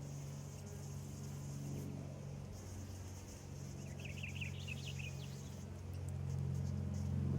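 Bumblebee buzzing with a steady low hum that grows louder near the end. A short bird twitter comes about four seconds in.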